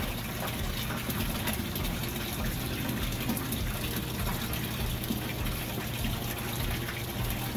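Steady splashing of water pouring from the aquaponic grow bed's drain line into the sump tank.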